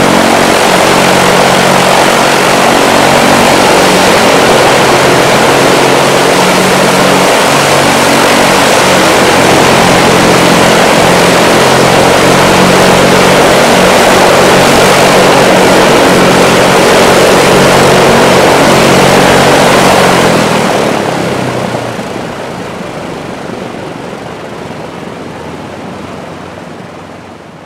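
Lockheed P-38F Lightning's twin Allison V-1710 liquid-cooled V-12 engines running steadily with propellers turning. The sound starts abruptly and fades out gradually over the last several seconds.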